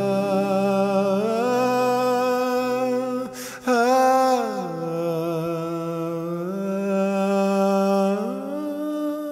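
Slow, wordless background music of long held notes that glide from one pitch to the next, with a brief break and a click about three and a half seconds in.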